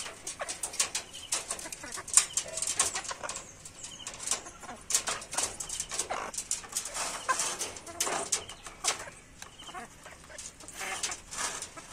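Chickens pecking at a mango on a wire-mesh cage floor: quick, irregular sharp taps of their beaks, with a few short clucks.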